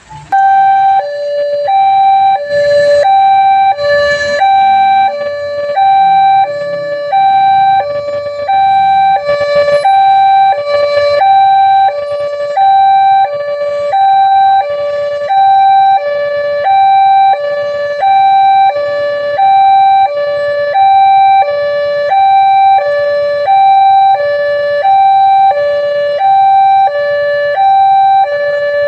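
Railway level crossing alarm coming on suddenly and sounding a steady two-tone warning, a high tone and a lower one alternating about once a second, signalling that a train is approaching.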